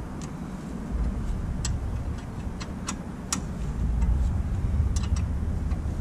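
Scattered light clicks and ticks from gloved hands working wiring and fittings around the alternator in a truck's engine bay, about half a dozen at irregular spacing, over a steady low rumble that grows louder in the second half.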